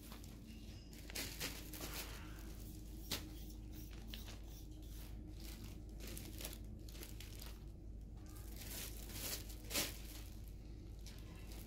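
Hands tearing thin strips of excess rubber flash off a moulded pressure-cooker gasket ring. The result is a run of scattered soft tearing and crinkling sounds, with sharper crackles about three seconds in and again about ten seconds in.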